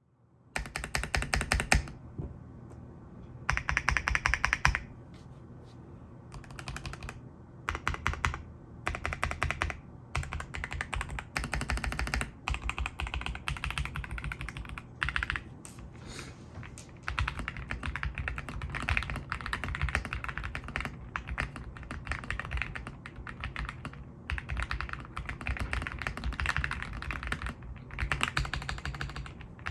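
Typing on a mechanical keyboard with Epomaker Leobog Graywood V3 linear switches, PBT keycaps and a taped, foam-filled plastic case: fast runs of clacky keystrokes broken by a few short pauses.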